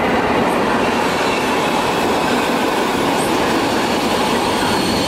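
Italo ETR575 high-speed electric train pulling out of a station, its cars rolling past with a steady, loud rumble of wheels on rail.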